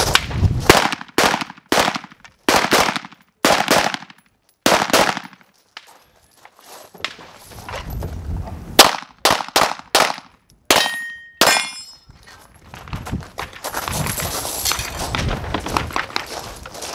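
Rapid gunfire in a multigun stage, shots about half a second apart, with the clang and ring of steel targets being hit. Near the end, the shooting gives way to the scuffing of the shooter moving across gravel.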